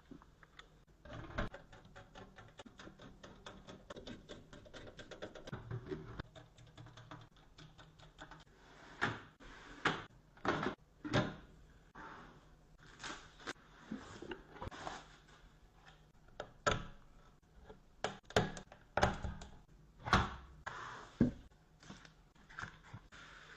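Hands handling computer hardware: a quick run of small clicks and taps, then louder, irregular knocks and scrapes from about nine seconds in, over a faint steady hum.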